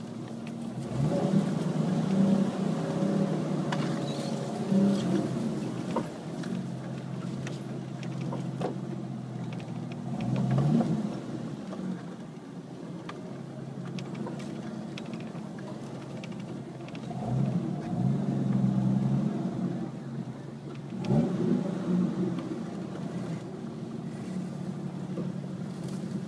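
Off-road vehicle's engine running under load on a rough dirt trail, heard from on board. The revs rise and fall several times as the driver works the throttle over the bumps and up the slope.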